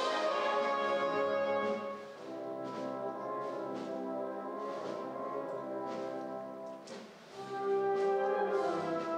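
Brass band playing a procession march in long held chords, thinning briefly about seven seconds in and then swelling again.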